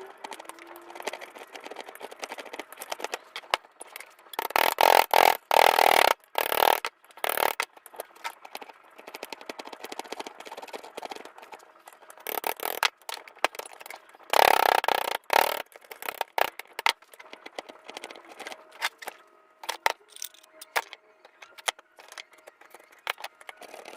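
Metalwork noise from repairing a steel farm fork: two harsh scraping bursts of about two seconds each, with scattered clicks, knocks and rattles of handling in between.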